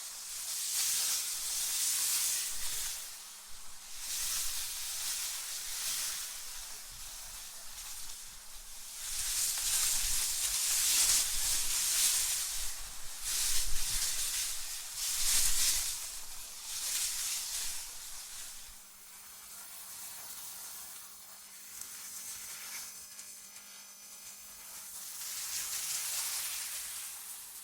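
AI-generated wind sound: an airy hiss that swells and dies away in gusts every few seconds, strongest about halfway through, over a faint steady low hum.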